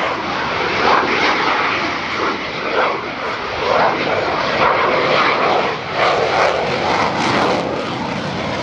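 Aircraft engine noise from a display aircraft in flight: a loud, steady rush that swells and fades unevenly.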